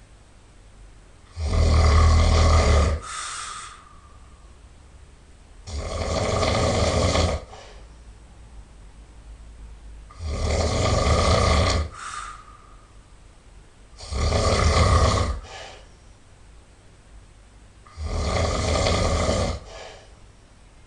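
A person snoring loudly in a steady rhythm: five long, rasping snores about every four seconds, each lasting about a second and a half, with a short, softer tail after most of them and quiet breathing in between.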